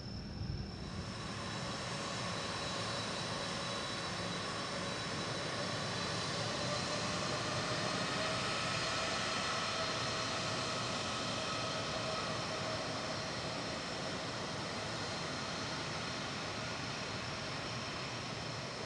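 Boeing 767-300ER airliner's jet engines running with a whistling whine over a steady rush. The rush swells about a second in as the power comes up and then holds.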